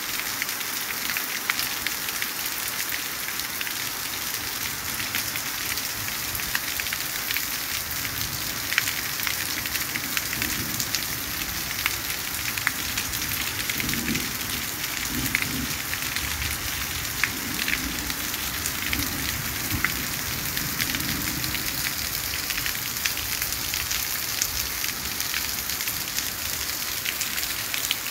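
Steady rain falling on a paved street and trees: a constant hiss with scattered sharp ticks of single drops.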